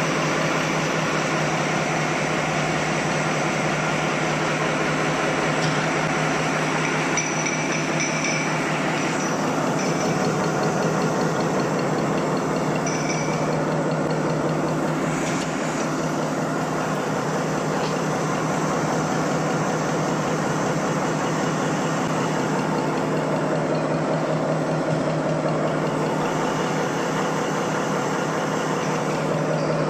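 Napkin paper folding machine running steadily: a constant mechanical hum with a strong low tone.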